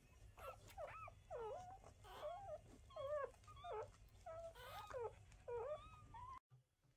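Newborn Portuguese Water Dog puppies squeaking and whimpering, about ten short high squeals that rise and fall in pitch, breaking off suddenly near the end.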